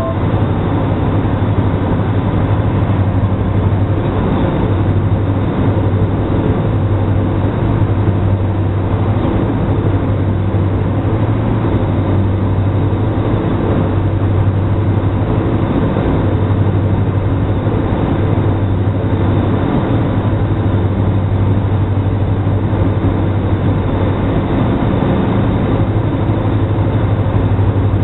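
Diamond DA42 NG's twin Austro AE300 turbodiesel engines and propellers droning steadily, heard inside the cockpit, with a strong low hum under a wide rush of noise.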